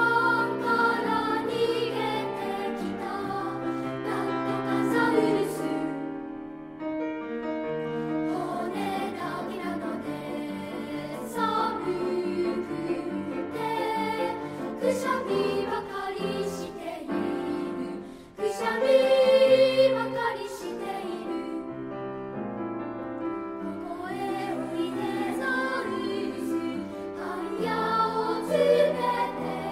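Children's choir singing a Japanese choral song.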